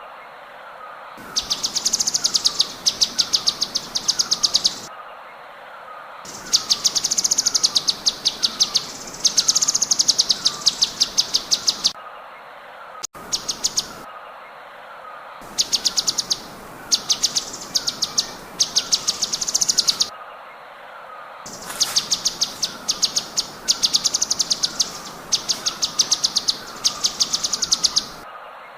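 Cucak cungkok song in rapid-fire bursts: fast, even strings of sharp high notes, each burst lasting two to four seconds with a brief pause between. Under them, a soft short falling chirp repeats about once a second.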